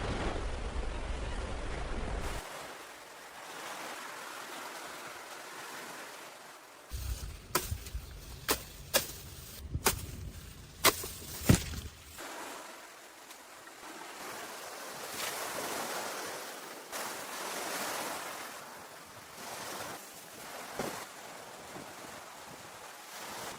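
Sea surf washing steadily on a beach, with two spells of low wind rumble on the microphone. Partway through comes a run of about half a dozen sharp knocks.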